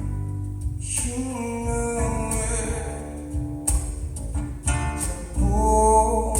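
Recorded music played over KEF LS50 Meta speakers: plucked acoustic guitar over a steady bass, with a sung vocal line coming in about a second in and again near the end.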